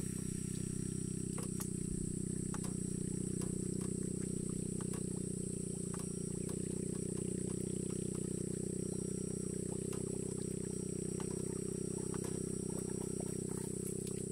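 A small boat motor running steadily at constant speed, a low, even drone with no change in pitch.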